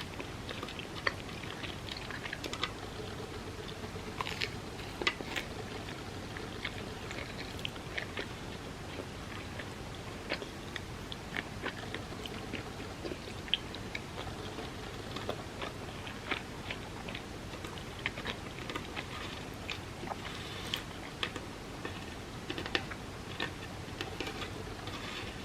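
Close-miked eating sounds: chewing, with many small, irregular mouth clicks over a steady low hiss.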